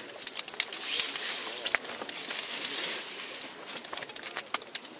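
Freshly caught small-mouth smelt flopping and slapping on wet ice, an irregular patter of small sharp clicks and slaps.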